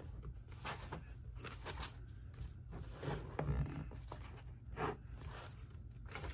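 Pages of a softcover paper workbook being turned and smoothed flat by hand: soft paper rustles and swishes, with a few louder ones past the middle.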